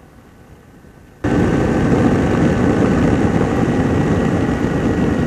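Two-stroke engine and propeller of an ultralight aircraft running steadily in flight, with rushing wind. The sound cuts in abruptly about a second in, loud and unbroken.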